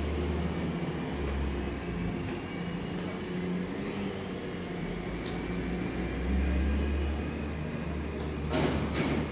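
Heavy diesel machinery in a freight yard running steadily with a low rumble and hum, and two short sharp clanks near the end.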